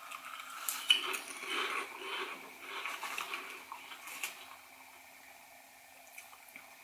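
Two people chewing crunchy layered corn crisps (sweetcorn-flavoured Turtle Chips) with irregular crunches through the first four seconds or so, then only faint chewing.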